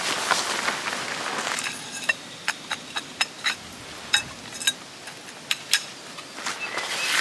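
Tent gear being handled: a rustle at first, then a string of irregular sharp clicks and light clinks, like clips and poles being fitted.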